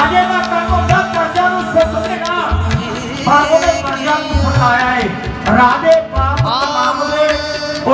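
Devotional singing with tabla accompaniment: a voice sings a winding melody over regular tabla strokes.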